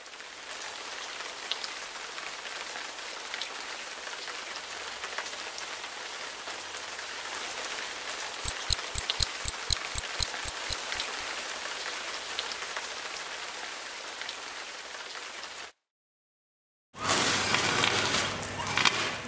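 Steady rain falling, with a quick run of about a dozen clicks, some six a second, around the middle. After a brief cut to silence, a fire extinguisher sprays with a louder rushing hiss near the end.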